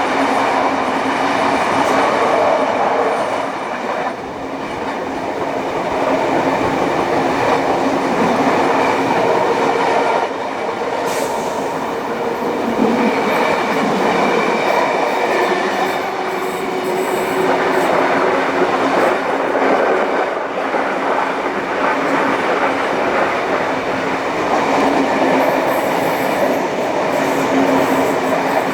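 Passenger train carriages hauled by steam locomotive 3801 running along the track: steady wheel and rail noise with faint tones.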